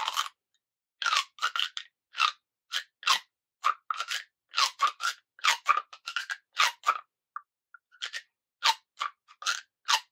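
Plastic pop tube being stretched and bent, its ribbed sections snapping open and shut in a rapid run of short crackling pops, with a brief lull about seven seconds in.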